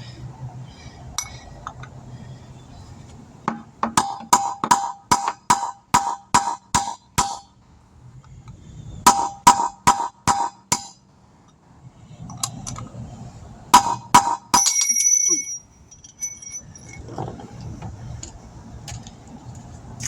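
Hammer blows on a steel wheel stud and rim, each a sharp ringing metallic clang, beating at a broken wheel stud to drive it out of the wheel. The blows come in runs at about three a second: about a dozen, then half a dozen, then a couple more, with a short ringing tone after the last.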